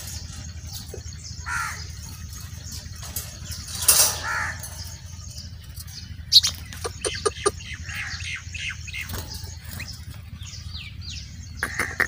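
Caged budgerigars chirping now and then in short falling calls, the loudest about four seconds in, with wings flapping and a few sharp clicks about halfway, over a steady low rumble.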